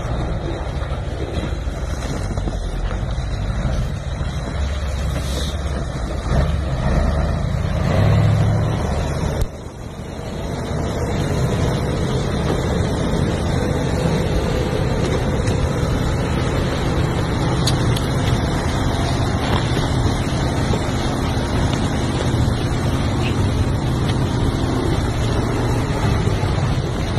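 Heavy truck's diesel engine running as the truck drives through deep snow, a steady low rumble. It breaks off abruptly about ten seconds in and resumes at once with the same steady rumble.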